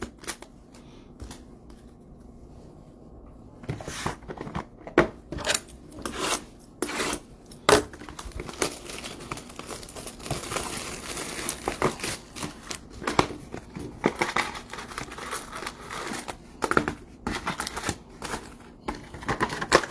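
Plastic packaging crinkling and rustling as it is handled, with irregular clicks and light knocks. It starts about four seconds in after a quiet stretch.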